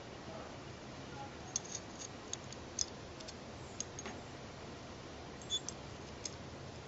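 Small steel parts of a Mauser C96 Broomhandle locking frame clicking and tapping together as the safety lever is fitted into it by hand: light, scattered metallic clicks, a quick cluster about two seconds in and a few more later.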